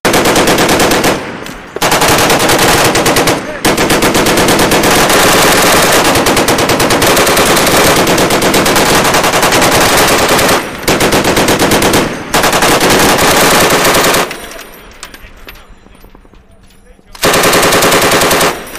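Belt-fed machine gun firing long bursts of rapid automatic fire, broken by short pauses. It stops for about three seconds, then fires one more burst near the end.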